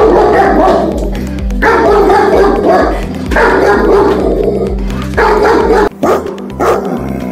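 German Shepherd barking loudly in long rapid runs over background music. About six seconds in, this gives way to a few separate barks from an American Akita.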